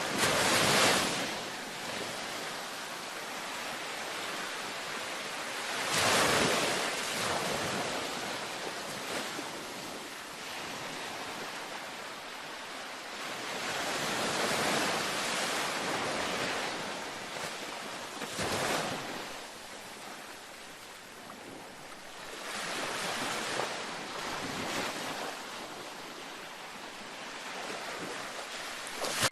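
Ocean waves washing onto a beach: a continuous hiss of surf with a louder surge every few seconds as each wave breaks and runs out.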